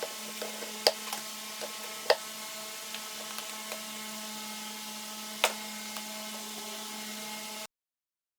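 Hand tools clicking and tapping on the fridge's metal parts during disassembly, over a steady low hum. There are three sharper clicks, about one, two and five and a half seconds in. The sound cuts off abruptly near the end.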